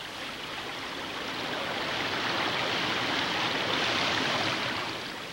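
Water pouring over a drop and splashing into a foamy pond, a steady rushing that swells toward the middle and fades near the end.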